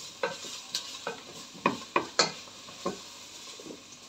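Wooden spoon stirring meat and onions frying in oil in an enamel pot, with irregular knocks and scrapes against the pot over a steady sizzle.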